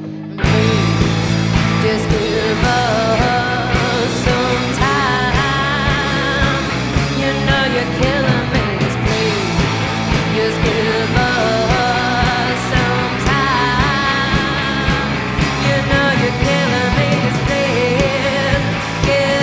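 Indie rock band playing live: electric guitars, keyboard and drums. After a brief quieter moment, the full band comes back in about half a second in and carries on at full level.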